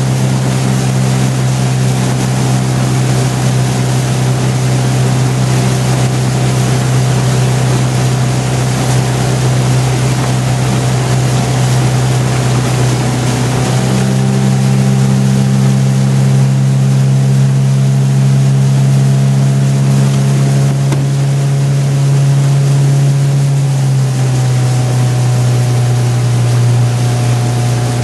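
Outboard motor of a coaching launch running steadily while pacing a rowing shell, its engine note shifting slightly about halfway through and again near the end, over a hiss of wind and water.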